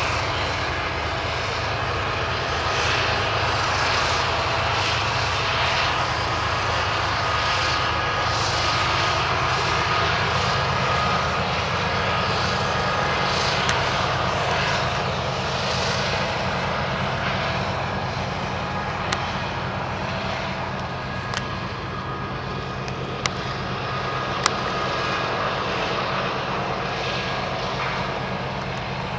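BNSF diesel-electric freight locomotives and a long string of steel coal hoppers passing on a mountain grade: a steady engine drone with low rumble and rolling wheel noise, a faint whine running through it. A few sharp clicks come in the second half.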